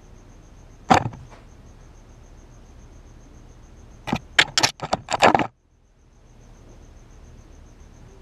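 Crickets chirping steadily. A sharp knock about a second in, then a rapid cluster of loud knocks and scrapes from about four to five and a half seconds as a cat bumps the ground-level camera and it is knocked over.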